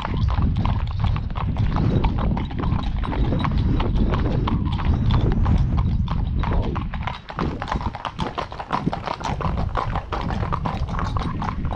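Hooves of several ponies walking on a tarmac road, a quick irregular clip-clop of overlapping strikes, over a low rumble that eases off about seven seconds in.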